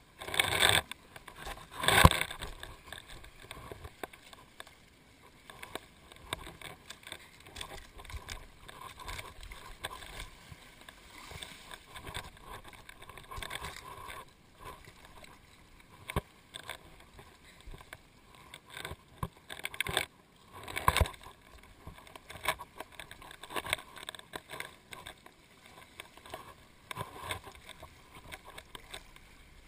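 Small sea waves washing and slapping against shoreline rocks, in irregular splashes over a steady wash, loudest about two seconds in and again around twenty seconds in.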